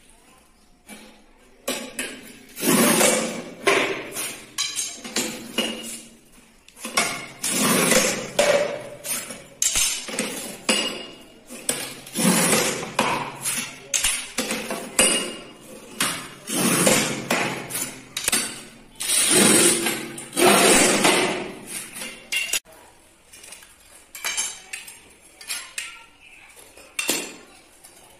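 Manual rail tile cutter scoring and snapping strips off a vitrified tile: repeated scraping strokes a second or two long, with clinks and knocks of tile pieces between them. Near the end, lighter clinks as cut tile strips are set down.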